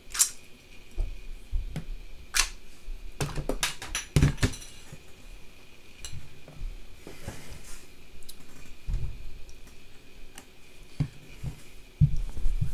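Sharp plastic clicks and clacks of a Nerf blaster being handled and fired with foam darts. The loudest cluster comes about four seconds in, with softer knocks of handling later on.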